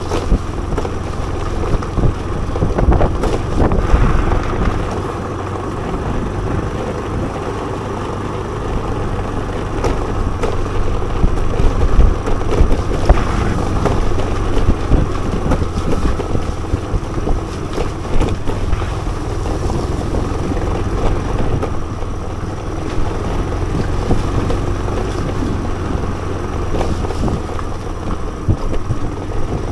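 Scooter engine running at low road speed, picked up by an action camera's built-in microphone along with wind and road noise. A few short knocks come through along the way.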